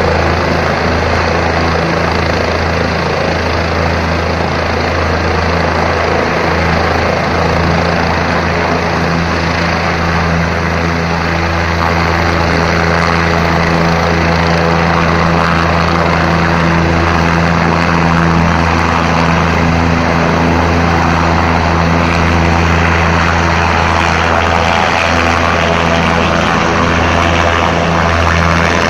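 Helicopter's turbine engine and main rotor running loudly and steadily, with a strong low hum; the sound grows a little louder about twelve seconds in.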